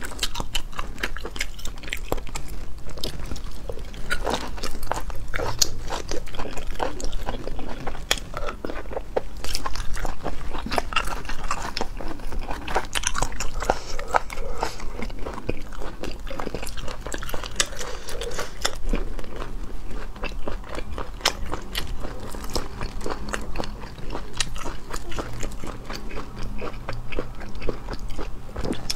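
Close-miked chewing and biting as sea snails in chili oil are eaten, with many small irregular clicks and crunches throughout.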